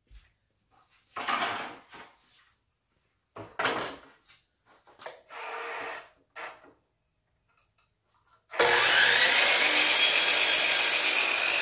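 Boards knocking and sliding as they are handled. Then, about eight and a half seconds in, a DeWalt sliding compound miter saw starts up, its pitch rising, and cuts through a cedar board to trim off the factory edge. Near the end it begins to wind down.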